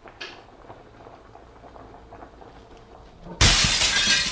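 Sudden loud crash of shattering glass about three and a half seconds in, dying away over about a second.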